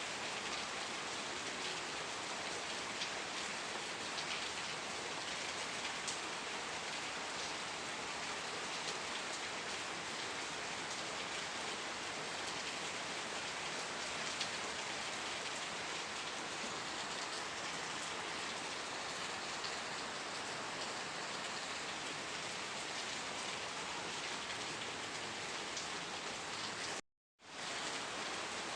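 Steady rain falling, an even hiss with the faint ticks of single drops. Near the end the sound cuts out completely for a split second, then resumes.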